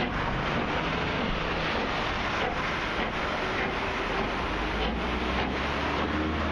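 Steam-hauled train of passenger coaches rolling past: a steady rumble and rattle of wheels on the rails, with a faint regular clicking.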